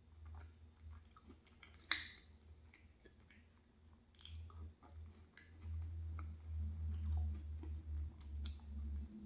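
Close-miked chewing of a soft applesauce and granola-crumble dessert, louder over the second half, with sharp clicks of a metal spoon against a glass bowl, the loudest about two seconds in.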